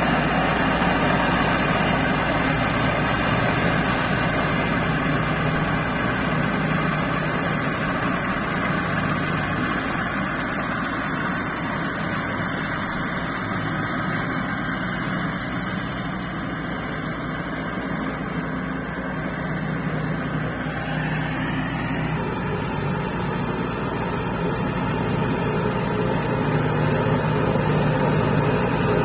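SCAG Turf Tiger zero-turn mower's Caterpillar diesel engine running steadily under load, its deck cutting tall grass. The sound fades as the mower moves away about halfway through and grows louder again near the end as it comes back.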